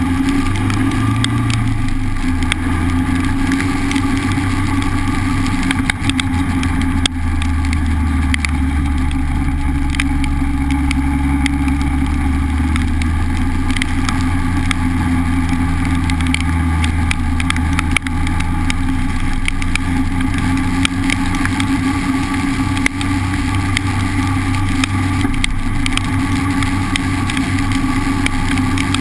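Honda Civic driving in the rain, heard through a pole-mounted GoPro: a steady low engine and road drone that shifts a little in pitch. Scattered light ticks run through it, which fit raindrops striking the camera housing.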